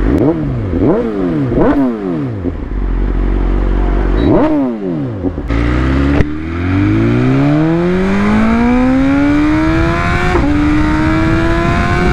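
BMW S1000RR inline-four sportbike engine revved in three quick blips, then once more, with the pitch shooting up and falling back each time. Then, under hard acceleration, the engine note climbs steadily for several seconds, dips briefly at an upshift about ten seconds in, and rises again.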